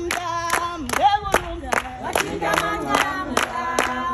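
A group of people singing together to steady rhythmic hand clapping, about three to four claps a second.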